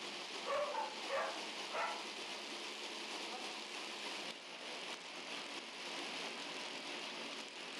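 A dog gives three short barks about half a second apart, over a steady hiss of background noise.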